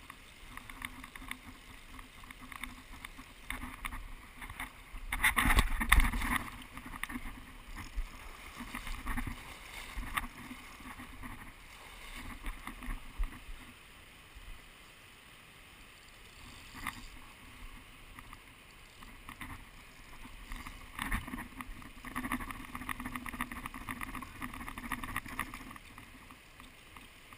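Fast river current rushing steadily over stones, with a louder rough burst about five to six seconds in and a few brief knocks from handling near the camera.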